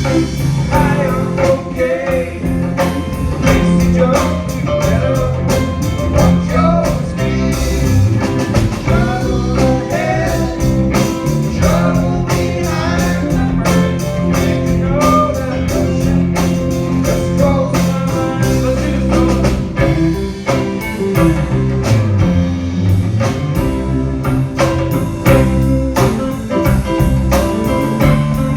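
Live band playing a blues-rock song: a sung lead vocal over guitar and bass, with a steady beat of drum hits.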